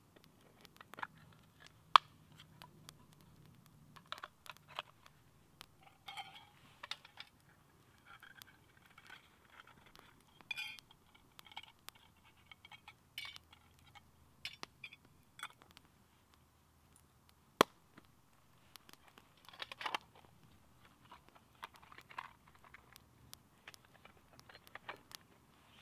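Wood campfire burning and crackling, with irregular small snaps and pops; two sharp pops stand out, about two seconds in and a little past two-thirds of the way through.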